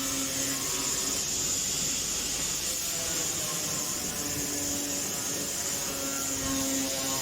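Grinder fitted with a sanding disc running steadily against a surface, giving a continuous high, hissing whir.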